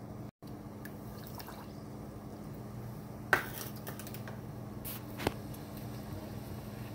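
Rice-vinegar pickling liquid heating in a stainless steel saucepan on a glass-top stove: a steady low hum with faint hiss, and a sharp click about three seconds in followed by a smaller one about two seconds later. The sound briefly cuts out just after the start.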